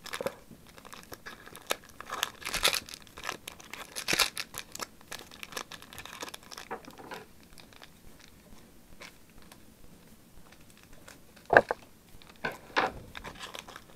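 Foil trading-card booster pack wrapper being torn open and crinkled by hand, a dense run of crackling that eases off halfway, then two sharper crinkles near the end.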